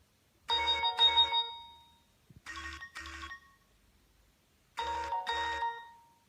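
Nokia 6070 mobile phone playing a polyphonic ringtone: a short two-note chime figure sounded three times, the second time softer, each pair ringing off briefly.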